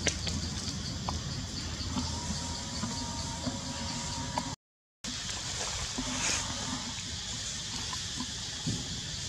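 Steady outdoor ambience in tree canopy: a high hiss over a low rumble, with a few small clicks and, for a couple of seconds, a faint held tone. The sound drops out completely for about half a second midway.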